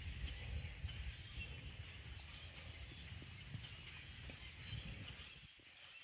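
Outdoor woodland ambience: faint bird chirps over an uneven low rumbling that eases off near the end.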